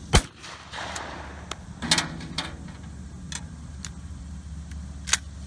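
Sharp clacks and clicks of a shotgun being handled: one loud clack right at the start, another about two seconds in and a lighter one near the end, with fainter clicks between.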